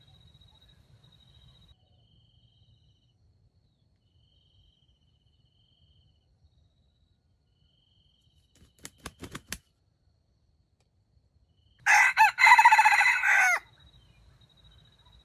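A red junglefowl rooster crows once, a short, broken crow of under two seconds, about twelve seconds in. A few seconds earlier comes a quick run of four or five sharp clicks.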